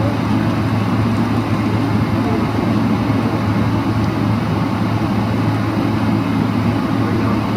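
Boeing 777-300ER's GE90 engines at high thrust heard inside the cabin during the takeoff roll: a loud, steady rumble with a constant low hum.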